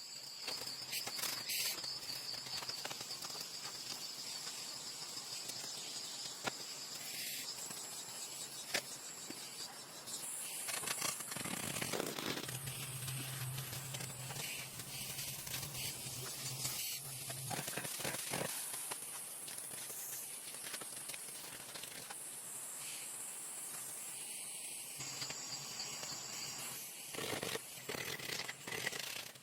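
Insects buzzing steadily in high, shifting tones, with scattered clicks and knocks.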